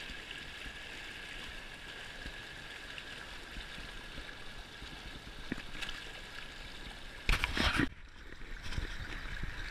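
River water gurgling and splashing around a small pontoon boat's tubes as a rainbow trout is released by hand. A brief loud rush of noise cuts in about seven seconds in.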